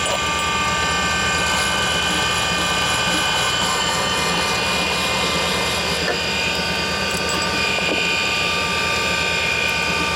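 Valve refacing machine running steadily: its electric motor and grinding stone give a constant hum with several high, steady whining tones.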